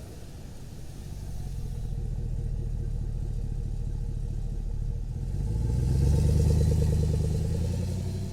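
Chevy Silverado V8 truck engine running, building in loudness and swelling to its loudest about six to seven seconds in before easing off.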